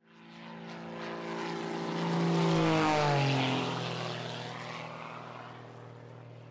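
Propeller airplane flying past: the engine drone swells to a peak about two and a half seconds in, drops in pitch as it passes, then fades away.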